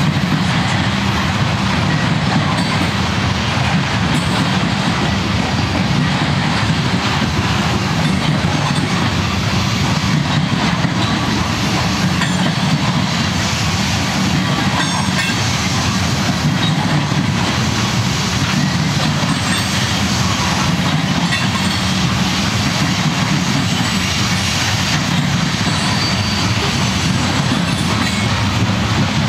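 Loaded coal hopper cars of a Union Pacific freight train rolling past: a steady, unbroken noise of steel wheels running on the rail, with a clickety-clack.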